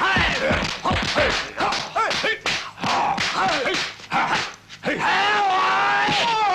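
Fighters' kung fu shouts and yells, short sharp cries one after another, with dubbed punch and kick impact sounds between them. Near the end comes one long drawn-out yell.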